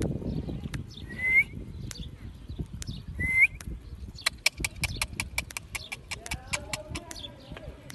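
Chukar partridge giving two short, loud calls that sweep upward, about two seconds apart. A quick run of sharp clicks follows, a few seconds long.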